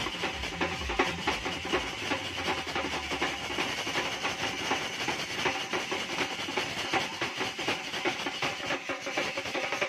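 A troupe of drummers beating large drums with sticks in a fast, dense, unbroken rhythm of rapid strokes.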